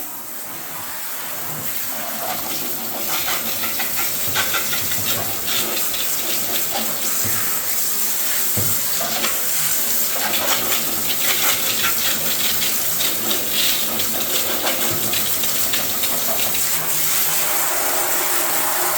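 Water running steadily from a tap while things are washed under it, with scattered knocks and clatter from the handling.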